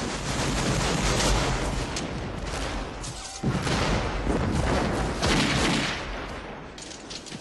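Dense, overlapping musket volleys with deep booms in a Civil War film battle soundtrack, a continuous fusillade that briefly dips about three seconds in and dies down near the end.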